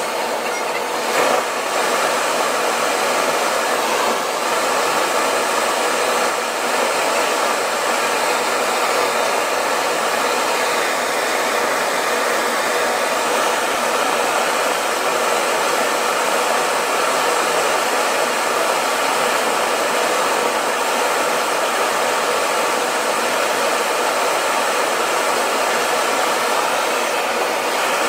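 Metal-spray (thermal spray) gun running with a loud, steady hiss of its gas jet, building metal back onto the worn bearing seat of a screw compressor rotor shaft.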